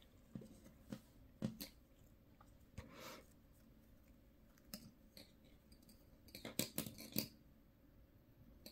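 Faint handling sounds of crochet work: light clicks and rustles as gold metallic thread is pulled off a plastic bobbin and the crochet hook and yarn are handled, with a quick run of sharper clicks about six and a half seconds in.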